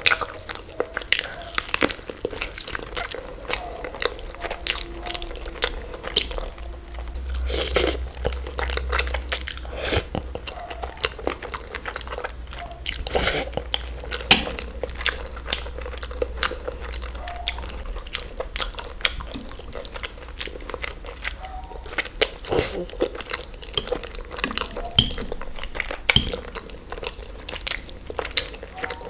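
Close-miked eating: steady chewing and biting with many irregular wet clicks and crunches of food in the mouth.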